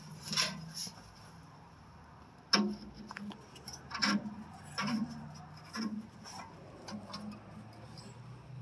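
Irregular clicks and light knocks of a stuck old filler cap on a tractor's hood being gripped, tapped and twisted loose by hand, about a dozen over several seconds.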